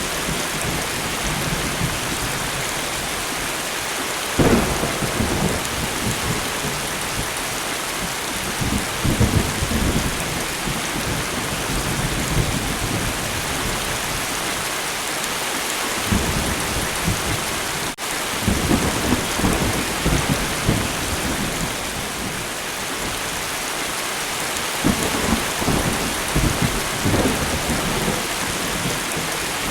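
Steady rain hiss with thunder rumbling several times over it, the first rumble starting suddenly about four seconds in and others coming and going through the rest.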